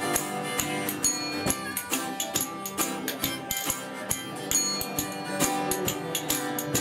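Acoustic folk-blues band playing: two acoustic guitars picking and strumming while a pair of spoons clacks a quick rhythm over them.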